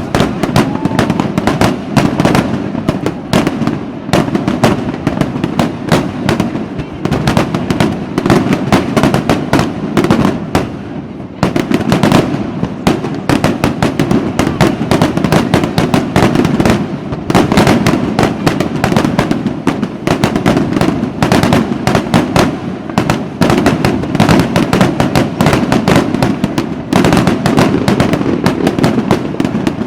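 Fireworks going off in a dense, continuous barrage of bangs and crackles, many reports a second, easing off only briefly a little past the middle.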